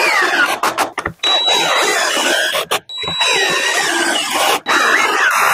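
Cordless drill driving screws, in about four runs of motor whine separated by short pauses, the pitch sagging within each run as the screw pulls in.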